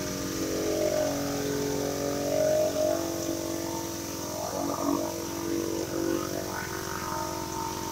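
Pressure washer running with a steady drone, driving a DeWalt rotary surface cleaner that is swept over wet wooden deck boards, its spray working on the wood.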